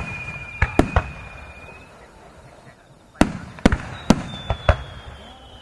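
Aerial firework shells bursting in a fireworks display finale: sharp bangs, three within the first second and five more between about three and five seconds in. A long, slowly falling whistle runs underneath.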